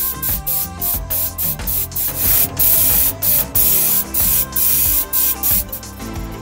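Airbrush spraying clear coat, a loud air-and-paint hiss that comes in short bursts, held steady for a second or so around the middle.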